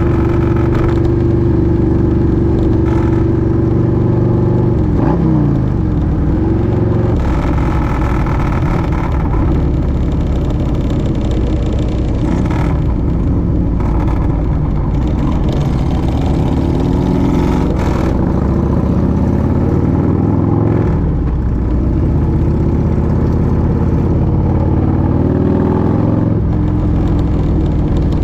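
Motorcycle engine running under way over steady wind noise. Its pitch drops as it slows about five seconds in, then rises several times as the rider accelerates again.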